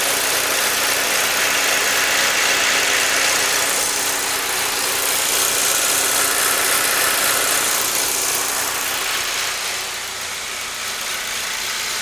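2008 Saab 9-3 2.0T turbocharged four-cylinder engine idling steadily. No misfire can be felt, even though the scan tool keeps logging misfires on cylinders 3 and 4.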